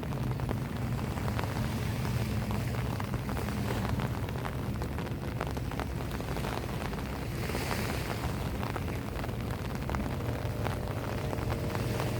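Rain falling, with many small raindrop ticks over a steady low rumble of wind and surf. A faint steady motor tone comes in near the end.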